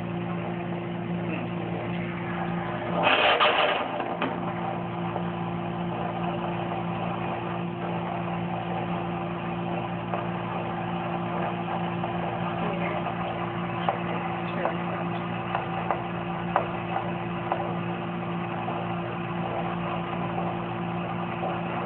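Handheld fetal Doppler's speaker giving a steady hiss and electrical hum as its probe works over the gelled belly, with a loud rush about three seconds in.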